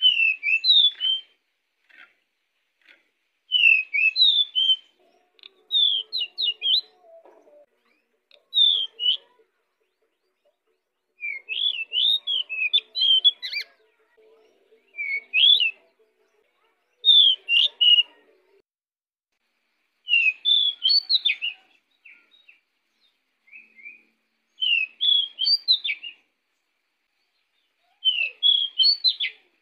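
Male pied bushchat (decu) singing in full voice: short bursts of quick, high chirping whistles, repeated every two to three seconds with short pauses between.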